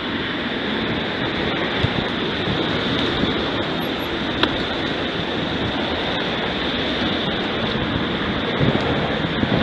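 Steady rushing noise of wind on the microphone, with no distinct events.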